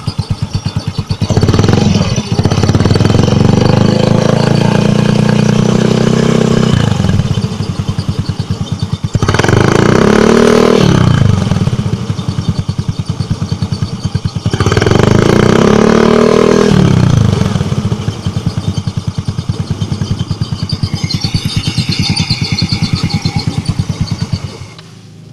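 Motorcycle engine idling and blipped up three times, each rev held a few seconds before dropping back to idle, with a faint high-pitched rattle near the end. The owner hears an abnormal noise in it and cannot identify the cause.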